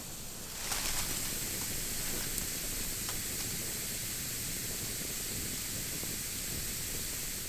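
A long log fire of white ash logs burning unattended over a bed of glowing coals, giving a steady hiss with a few faint crackles. The hiss grows louder about a second in.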